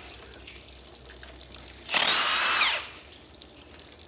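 A handheld power tool runs in one short burst of under a second, about two seconds in, its motor whine falling in pitch as it winds down. It is backing out a cylinder head bolt on a Chevy 305 small-block.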